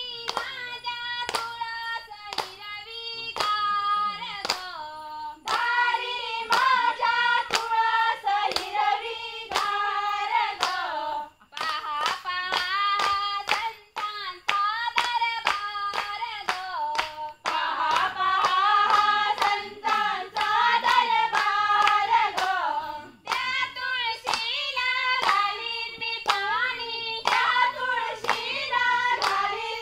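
A group of women singing a Konkani folk song in unison, in phrases with short breaks. They clap their hands on the beat, about two claps a second.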